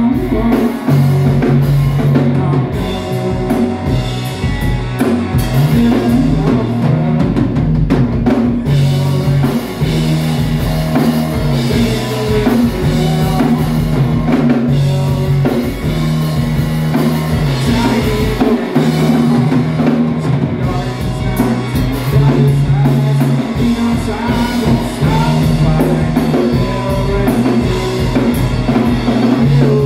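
Rock music with a drum kit, guitar and bass playing continuously.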